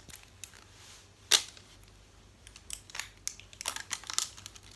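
Plastic wrapping of an L.O.L. Surprise toy ball crinkling and crackling as it is peeled off by hand: scattered clicks, one sharp snap a little over a second in, and a busier run of crackles in the second half.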